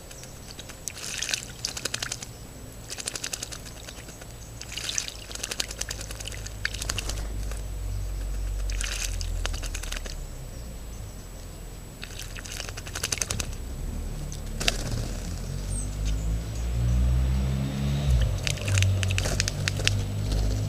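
Song thrushes bathing in a shallow basin, flicking their wings in the water in short bouts of quick splashing every second or two, with a single sharp click midway. A low rumble builds underneath in the second half.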